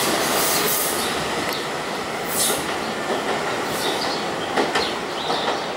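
Staten Island Railway R44 subway train pulling away, its steel wheels running and clicking over the rails. It grows gradually quieter as it recedes.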